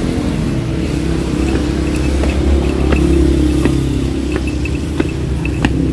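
Motorcycle engine running steadily at low speed, with a regular sharp click about every 0.7 seconds.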